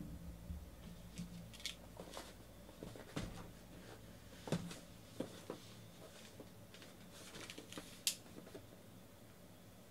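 Faint handling noise from a sealed cardboard case being lifted and turned over: light knocks and scrapes on the cardboard, with a sharper click about eight seconds in.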